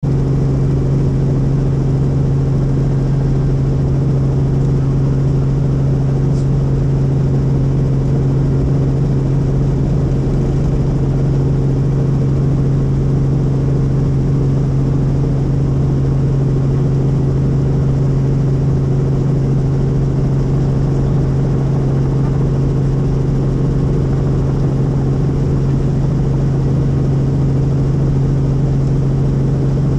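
Helicopter running steadily: a loud, even drone built on a strong low hum with a ladder of overtones, unchanging in pitch.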